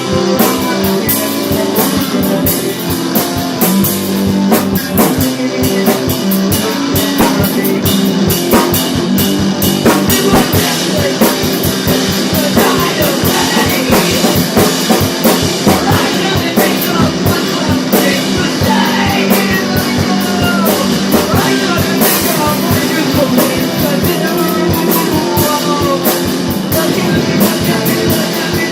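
Rock band playing a song: drum kit and guitars, with a wavering melodic lead line coming in from about twelve seconds in.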